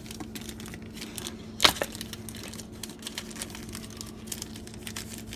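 Packaging being crinkled and torn open by hand, a run of small crackles with one sharp snap about a second and a half in.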